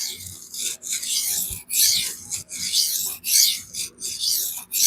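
Knife steel rasping across a 400 grit vitrified diamond sharpening stone in repeated strokes, about one and a half a second. The blade is skating across the stone, which the sharpener takes as a sign that the Magnamax steel was run hard.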